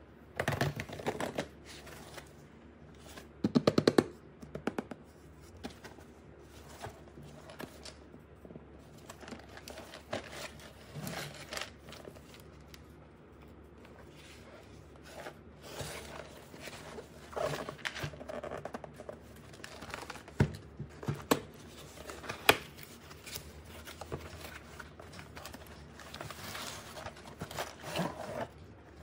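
Hands unpacking a toy kit: packaging rustling and tearing, with scattered clicks and taps. About three and a half seconds in comes the loudest sound, a short burst of rapid clicks.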